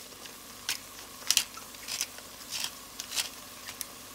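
Hand-twisted pepper grinder grinding black pepper into a pot. It gives about seven short, scratchy crunches, one twist after another.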